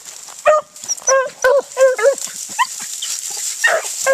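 A pack of beagles barking and yelping in short, repeated, high calls, several dogs overlapping near the end, as the pack works rabbit scent at the edge of brushy cover.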